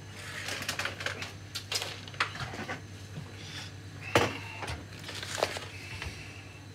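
A kitchen knife tapping and knocking on a plastic chopping board as raw chicken breast is sliced into thin strips. The taps come irregularly, the sharpest about four seconds in.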